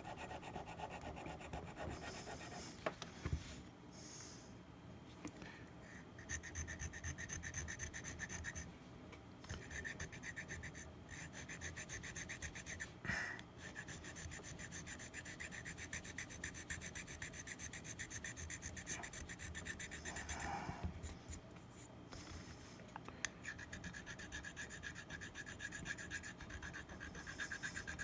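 Small hand file scraping back and forth across the bite area of a saxophone mouthpiece, wearing down the new bite-plate material in fast, repeated strokes. The strokes pause briefly a few times, and there are a couple of sharper clicks, one a few seconds in and one about halfway.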